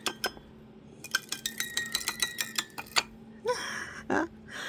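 Music box mechanism built into a puzzle box's drawer, its little metal comb plucked in a quick run of plinking notes as the drawer is pulled out, from about a second in until about three seconds in. Two short voice sounds follow near the end.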